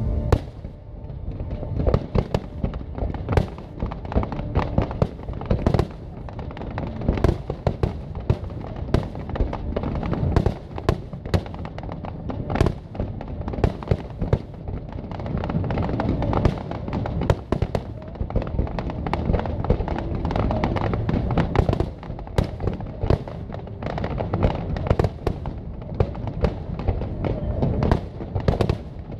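Fireworks display: aerial shells bursting in quick, irregular succession, a continuous run of sharp cracks and bangs over a low rumble.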